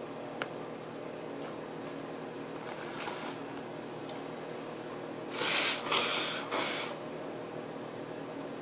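A person blowing her nose, in about three quick breathy blows a little past halfway, over a steady background hum.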